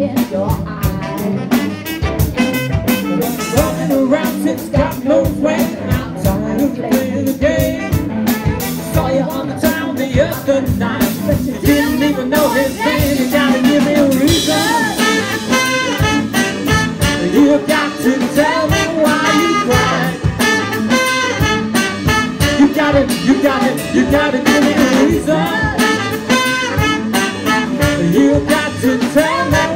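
A live band playing a song with a steady beat: a woman singing lead over saxophone, trumpet, guitar, keyboard and drum kit.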